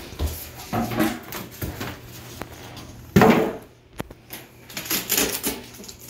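Cardboard packing box being pulled apart and its flaps handled: irregular scrapes, rustles and knocks, with one short, louder sound a little past halfway.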